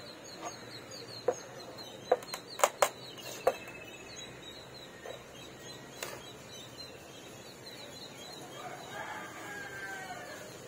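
A rooster crowing once near the end, over faint rapid high chirping. A handful of sharp taps or knocks between about one and three and a half seconds in are the loudest sounds.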